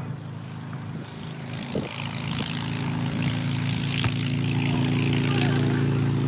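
A steady engine drone that grows louder from about two seconds in, with a single sharp thud of a football being kicked about four seconds in.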